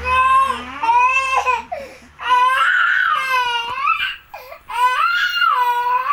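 A baby crying in four long wails of about a second each, the pitch rising and falling, with short pauses between them.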